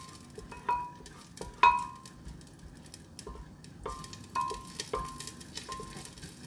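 Wooden spoon stirring diced onions in hot oil in a black cooking pot: several irregular knocks of the spoon against the pot, each leaving a short ringing tone, over a faint sizzle.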